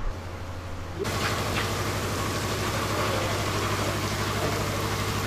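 Steady low mechanical hum of a running motor, starting abruptly about a second in.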